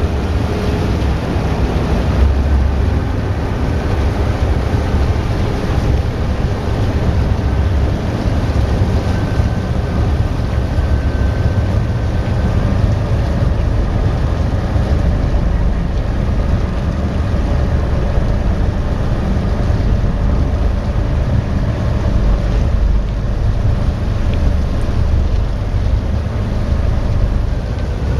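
Passenger ferry's engines and propellers running steadily as the ship pulls away from the quay, a constant low rumble with propeller wash churning the water alongside.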